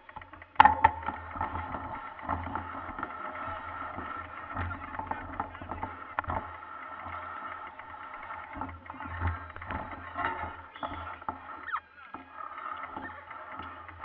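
Mountain bikes being pushed on foot over a rough, brushy trail: muffled rattling, knocks, footsteps and brush rustling, with a sharp knock about half a second in.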